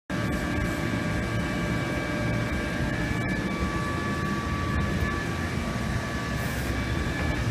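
Steady machine drone: a low rumble with a few faint, even high whines over it.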